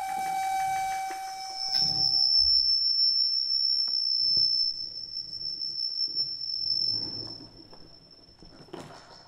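Audio feedback tones from a Skype group call between computers placed close together. A steady mid-pitched tone fades out over the first couple of seconds. A high steady tone starts about two seconds in and holds until near the end.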